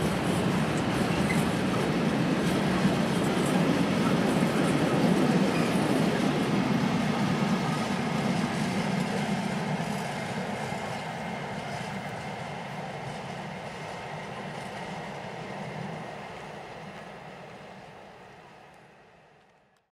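Loaded freight wagons of a long train, flat wagons carrying steel coils, running past on the rails, with a thin steady high tone over the wheel noise. From about halfway the noise dies away as the end of the train recedes, fading out to silence just before the end.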